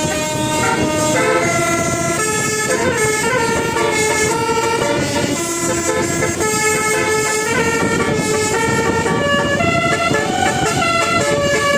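Indonesian 'telolet' multi-tone bus air horn with a 12-note set of trumpets, playing a tune: held notes stepping from pitch to pitch, each lasting about half a second to a second.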